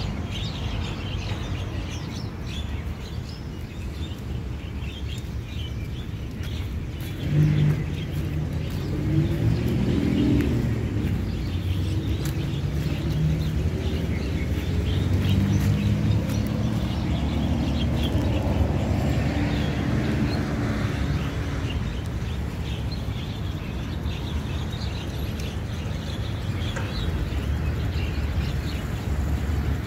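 Road traffic with birds chirping: a steady low traffic rumble, with a heavier vehicle's engine passing through the middle, its pitch rising and then falling, and small birds chirping over it.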